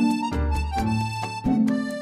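Background music with a steady beat, a bass line and a melody.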